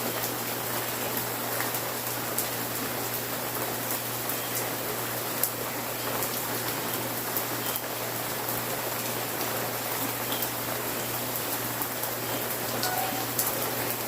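Steady rain falling, an even hiss with scattered sharp drips and ticks of single drops.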